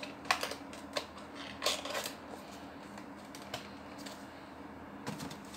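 Scattered light clicks, taps and rustles of a cardboard model-aircraft box being handled and put away, with a cluster in the first two seconds and a few more near the end.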